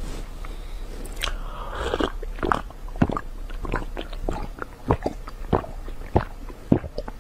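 A person drinking from a glass, close to the microphone: a series of short, sharp gulping swallows, roughly one every half second through the second half.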